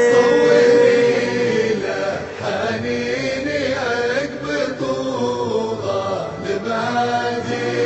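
Arabic song: the singer holds the last note of a line for about a second, then the instrumental accompaniment carries on between lines.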